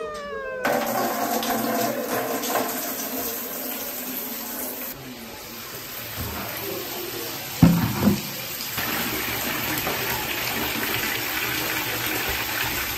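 Water running and splashing into a plastic bucket, steady throughout, with two knocks about eight seconds in. In the last few seconds it is poured from a kettle into the bucket to fill it for a bucket bath.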